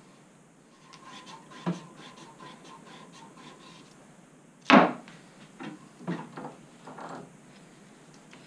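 Faint rubbing strokes as a cast trigger guard is dressed by hand, then a sharp knock about five seconds in, the loudest sound, followed by a few lighter knocks.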